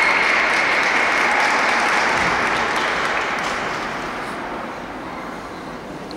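A small audience applauding, the clapping dying away gradually.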